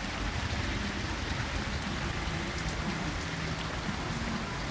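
Heavy rain falling steadily and hissing on the ground around, with a few faint drop ticks close by.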